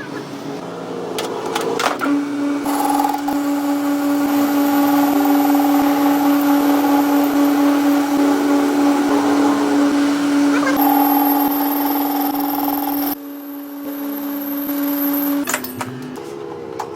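A power tool's electric motor running at a steady, even pitch. It comes up to speed about two seconds in and stops shortly before the end.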